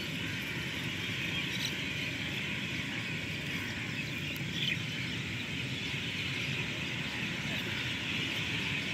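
Steady outdoor evening ambience: an even, high chirping chorus over a low rumble, unchanging throughout.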